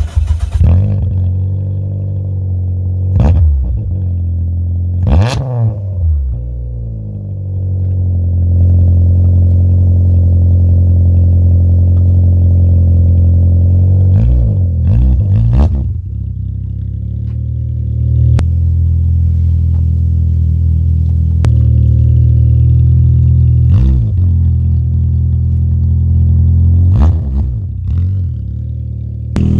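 Toyota 4E-FTE 1.3-litre turbocharged four-cylinder engine idling through a 3-inch stainless-steel exhaust with Simmons Turbonett resonators and a sports catalyst. It is blipped about eight times, each short rev rising and falling back to a steady idle.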